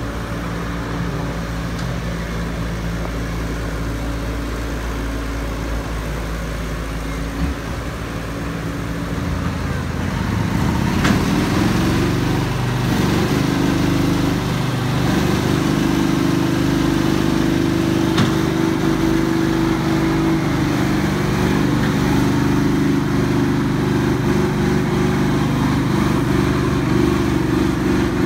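Caterpillar E120B excavator's diesel engine running steadily, then about ten seconds in it rises and works harder under hydraulic load as the boom and bucket move onto the stuck trailer, and it stays loaded from then on. A sharp click sounds twice.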